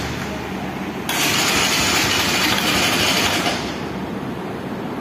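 Bajaj Discover 125 single-cylinder motorcycle engine running just after being started, with its exhaust noise swelling about a second in and easing off again near the end.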